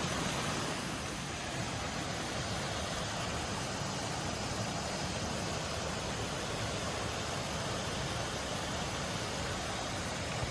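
Steady rush of a waterfall, an even hiss of falling water with no breaks or distinct events.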